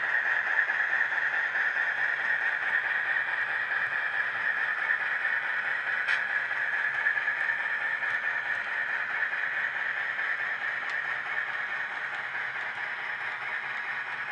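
HO-scale model freight train running along the track: a steady rolling rattle of the wheels and drive on the rails, growing a little fainter in the second half.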